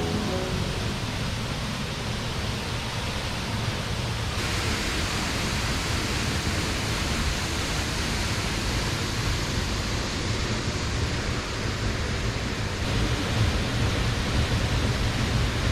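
Steady rush of water from a jungle waterfall or river; the hiss brightens in tone about four seconds in.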